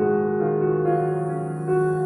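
Slow meditative piano music with long held notes, the chord shifting about halfway through.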